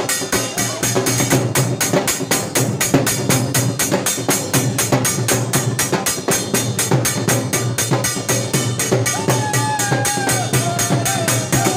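Loud dance music with a fast, steady drum beat of about five strokes a second. A wavering melody line comes in about nine seconds in.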